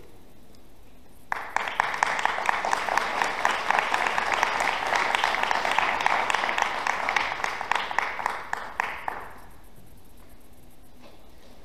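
Audience applauding, starting suddenly about a second in and dying away about eight seconds later.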